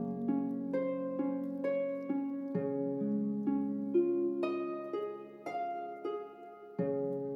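Background music: gently plucked string notes, about two a second, each ringing and fading over held low notes.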